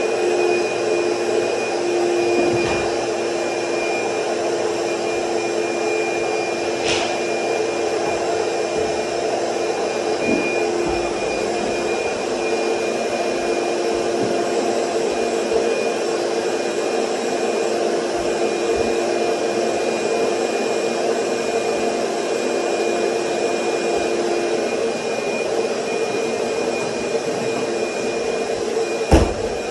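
Wet/dry shop vacuum running steadily as its hose is worked over a bare floor, a constant rush of air with a steady whine on top. A short sharp thump near the end.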